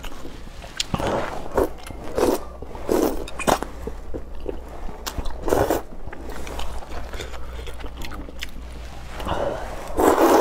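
A person slurping and chewing soupy rice noodles (luosifen) in short wet bursts, with small mouth clicks in between; the loudest slurp comes near the end.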